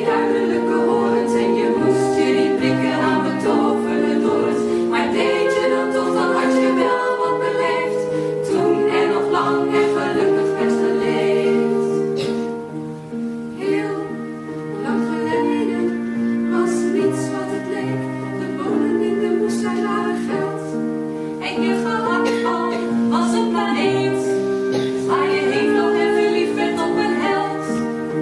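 A group of women's voices singing a song together in harmony, holding long notes that change every second or so, with a softer passage about halfway through.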